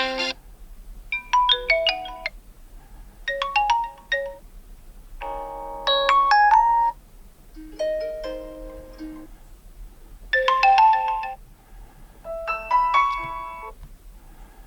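Vivo Y76 5G's built-in ringtones playing from its loudspeaker: about six short melodic bursts of electronic notes, each a second or so long with brief pauses between, the tune changing from one burst to the next as the phone's ringtone list is previewed.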